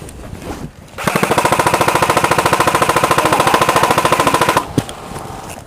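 Airsoft electric gun firing one long full-auto burst, a rapid, even rattle of shots. It starts about a second in and lasts about three and a half seconds.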